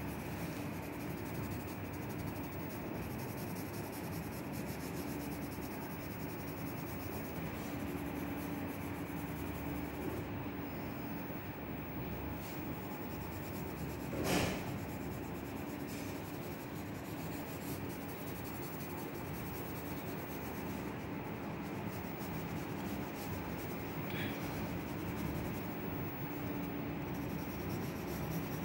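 Graphite pencil scratching and rubbing on drawing paper in shading strokes, over a steady low hum, with one brief louder sound about halfway through.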